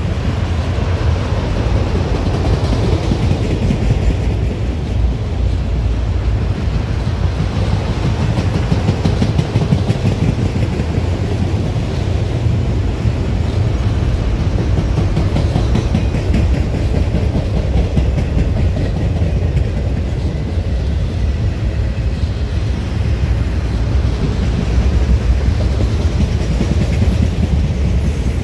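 Freight train of enclosed autorack cars rolling past close by: a steady rumble of steel wheels on the rails.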